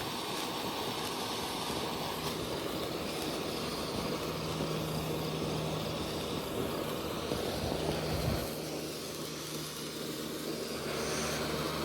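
Steady low drone of an airplane's engine passing overhead, growing louder toward the end, over a constant background hiss.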